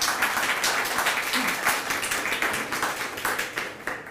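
Audience applauding, many hands clapping, the applause thinning out and dying away near the end.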